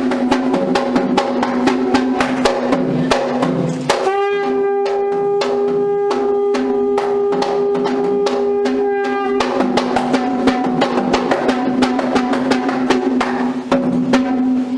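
Drums beating fast and steadily under a wind instrument holding long notes, which steps up to a higher note about four seconds in and back down at about nine and a half seconds.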